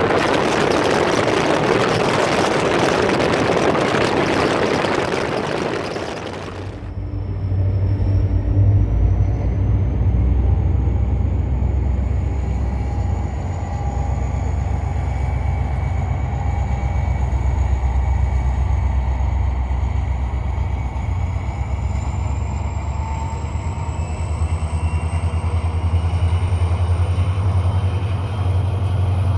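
Heavy wind noise on the microphone that cuts off abruptly about six seconds in, giving way to a steady low engine rumble.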